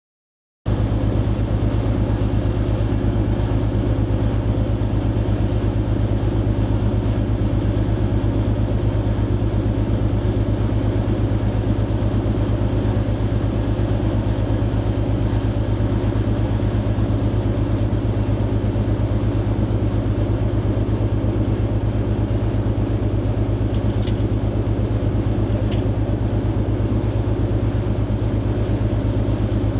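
Motor ship's diesel engine running steadily: a deep, even hum that never changes pace, cutting in abruptly about half a second in.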